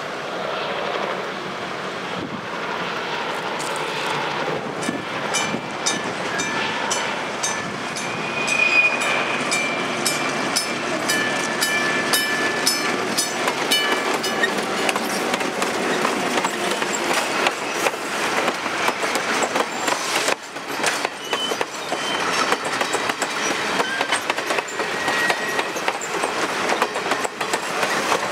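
Passenger train led by an EMD F7A diesel locomotive rolling past close by, its coach wheels clicking over the rail joints. A few brief high squealing tones come in the middle.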